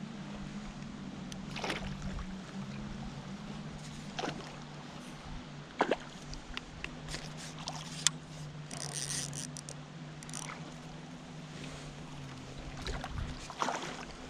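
Water splashing and sloshing as a hooked pike thrashes at the surface beside a kayak, with scattered sharp clicks and knocks over a steady low hum.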